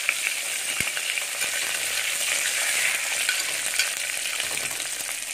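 Shallots, green chillies and curry leaves sizzling in hot oil in an aluminium pressure cooker while a metal spoon stirs them, with a few sharp taps of the spoon against the pan. The onions are being sautéed until soft.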